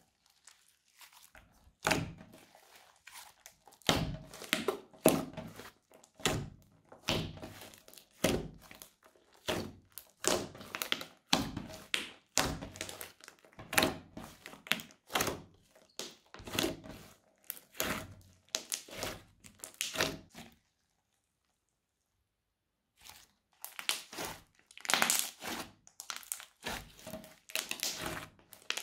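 Thick crunchy slime being stretched, poked and pressed by hand, popping and crackling as air pockets squeeze out, about one to two bursts a second. The sound cuts out completely for about two seconds some two-thirds of the way through, then the crackling resumes.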